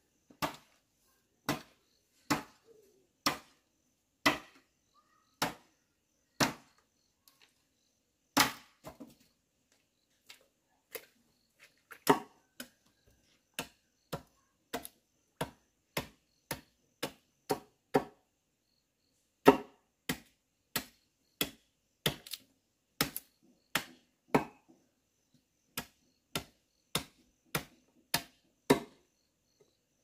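Repeated machete chops into wood, sharp single strikes about one a second, picking up to nearly two a second about halfway through.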